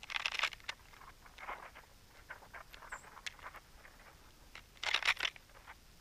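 Male northern cardinal cracking and picking at sunflower seeds right beside the microphone: a run of small, irregular clicks and crunches, with two louder, noisier bursts at the start and about five seconds in.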